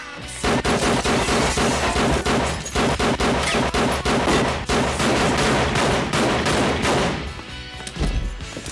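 Rapid gunfire from several handguns in quick overlapping volleys. It starts about half a second in and dies down after about seven seconds.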